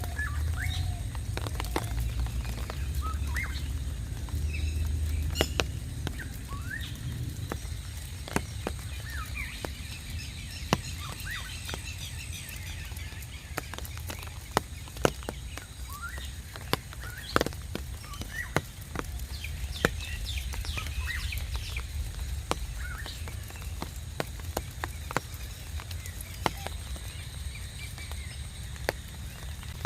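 Rain dripping in irregular, separate drops while small birds call with many short chirps, over a steady low rumble.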